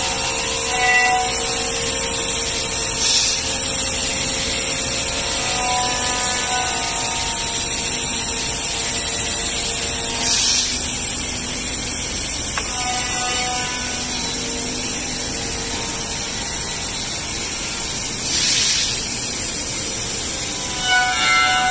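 Pade Velox T2 five-axis CNC router cutting wood for chair parts: a steady, loud hiss of the cutter running in the wood, with short whining tones that change pitch as the machine moves, and three brief louder hissing surges several seconds apart.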